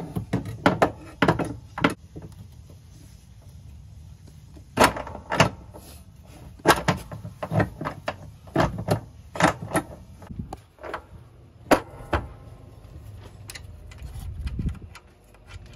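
Irregular knocks and clunks, in bunches with short pauses between, of a coilover shock being worked up into a car's front suspension and strut tower.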